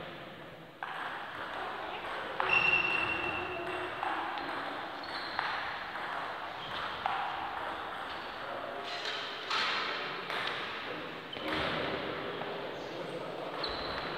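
Table tennis rally: the plastic ball clicking irregularly off the bats and table, echoing in a sports hall, with a few short high squeaks.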